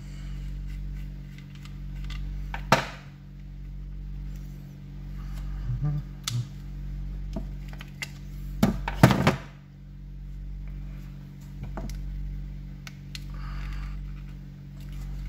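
Sharp plastic clicks and knocks from a Redell UV99 Plus handheld radio being taken apart by hand as its antenna and battery pack come off. The clicks come in a few separate bunches, the loudest about nine seconds in, over a steady low hum.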